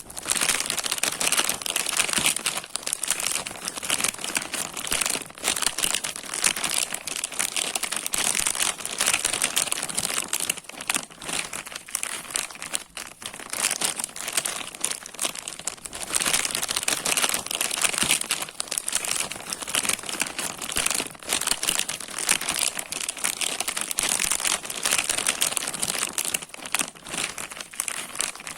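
Plastic bag being crinkled and crumpled by hand, a continuous dense crackling that rises and falls in loudness.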